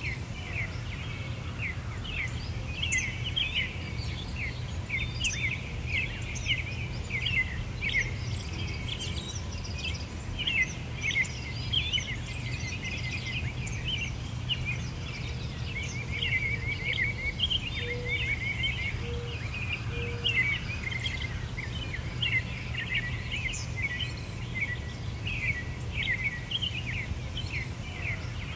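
A dense chorus of small birds chirping and twittering without a break, over a steady low background rumble.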